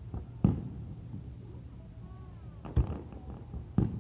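Firework shells bursting: three sharp bangs, about half a second in, near three seconds, and just before the end, over a steady low rumble.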